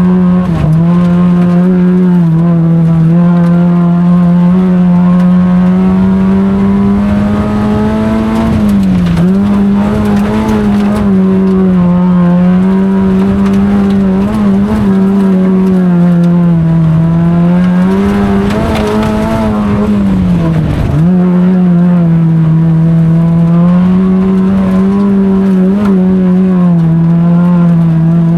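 Autocross race car's engine running hard at high revs through a run, its pitch wavering up and down, with two brief dips in revs about nine and twenty-one seconds in.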